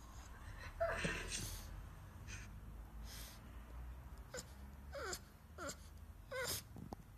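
Pug whimpering in short, high, wavering whines that fall in pitch, one about a second in and then four more in quick succession in the second half.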